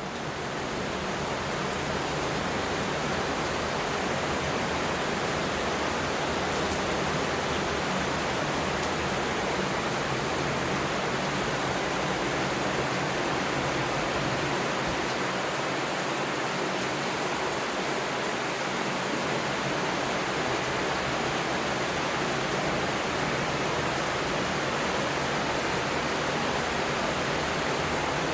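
Steady rushing noise of flowing water, fading in at the start and then holding even, with no distinct events.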